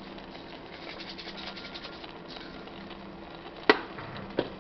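Red pepper flakes shaken from a plastic flip-lid spice shaker, a fast rattling that stops about two seconds in. Then one sharp click, the loudest sound, and a softer one shortly after.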